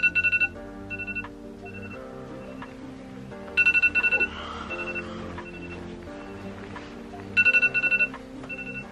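Phone alarm going off: loud clusters of rapid high beeps come at the start, about halfway and near the end, with quieter beeps between, over soft background music.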